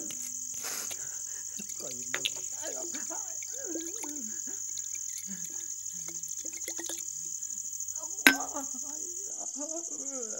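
Crickets chirring in a steady high band, with faint indistinct sounds underneath and a single sharp click a little past eight seconds in.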